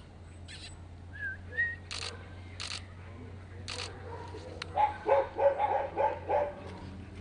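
A dog barking in a quick series of short barks, about three a second, starting about five seconds in, over a steady low hum.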